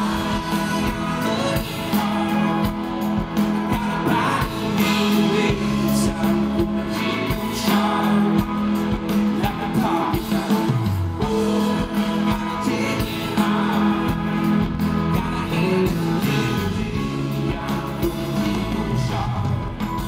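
Live rock band playing a song: electric guitars, electric bass and keyboards under a male lead vocal.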